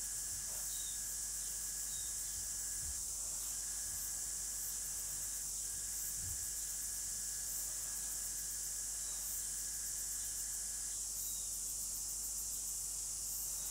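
Steady high hiss with a faint thin whine that drops out now and then, over a low hum: the background noise of the recording, with no distinct sound of the brush.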